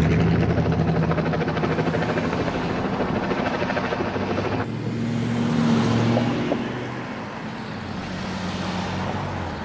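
Helicopter flying overhead: a steady drone of rotor and engine. It changes abruptly a little under halfway through and carries on at a somewhat higher pitch.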